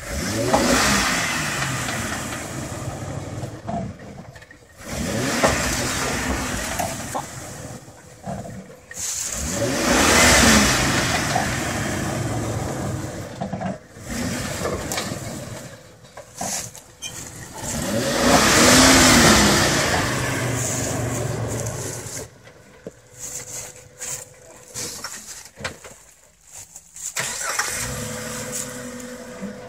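Off-road rock crawler's engine revving in repeated bursts, pitch rising and falling as it is throttled up and let off several times while climbing over rock.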